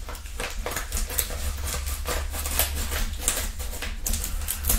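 Scissors cutting through a padded bubble mailer: a quick run of crisp snips and crinkling of the paper and plastic envelope.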